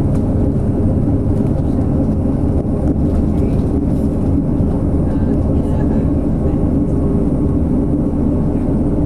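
Steady engine and tyre rumble of a coach at road speed, heard from inside the passenger cabin, with a faint high whine above it.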